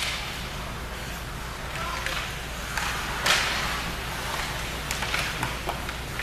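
Ice hockey play: sharp clacks of sticks striking the puck, one right at the start and several more later on, and a brief hissing scrape of skates on the ice about three seconds in, over spectators' voices and the rink's steady hum.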